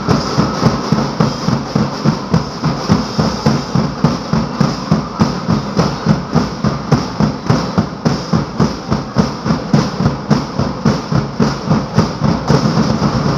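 Drums playing a fast, steady beat for a street dance, about three hits a second.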